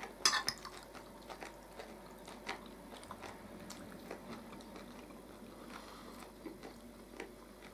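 People chewing food at a table, with a sharp click near the start and soft scattered clicks of forks against plates.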